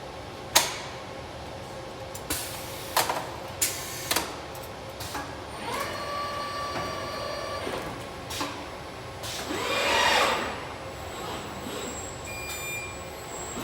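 Car-parts welding machinery at work: several sharp metallic clanks in the first few seconds, then a steady hum with a held tone for about two seconds, and a hiss that swells and fades about ten seconds in.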